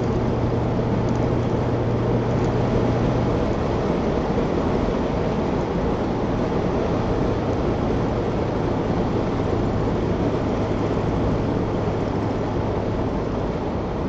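Cabin noise of a 1968 Chevelle Nomad wagon on the road: steady wind rush from the open vent windows over engine and tyre drone. The engine's low hum fades a few seconds in and returns slightly lower in pitch.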